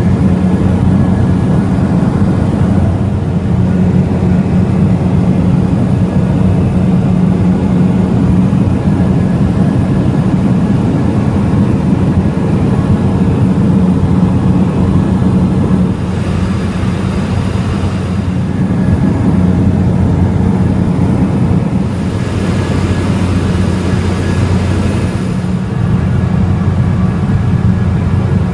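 Steady drone of a de Havilland Canada DHC-3 Otter float plane's engine and propeller in cruise flight, heard from inside the cabin as a low, even hum under a rushing hiss. The hiss swells briefly a little past the middle.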